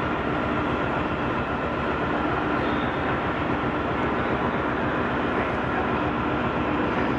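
Italo high-speed electric train running slowly through the station: a steady rumble with a constant high whine and a lower hum.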